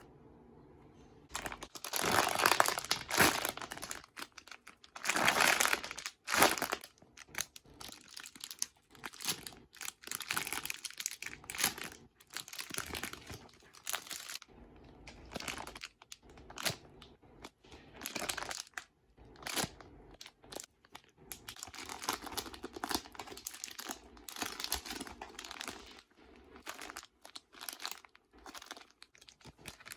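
Plastic crinkling and rustling in irregular bursts as squishy toys are handled and squeezed, starting about a second and a half in.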